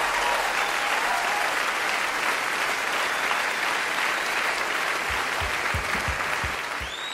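Large concert audience applauding at the end of a song, with a few shouts in the first second, a few low thumps near the end, and a rising whistle at the very end.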